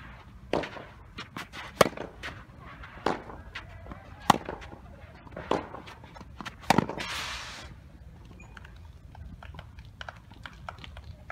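Tennis rally: racket strikes on the ball about every 1.2 seconds, six in all, the near player's three hits louder and sharper than the far player's. Just after the last near hit, about two-thirds of the way in, a brief scraping hiss of shoes sliding on the sand-filled artificial-grass court, then the hitting stops.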